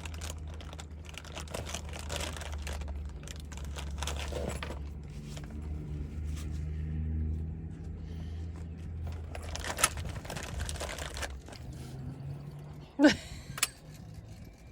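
Close rustling and small clicks of things being handled, with a few sharper clicks near the end, over a steady low hum.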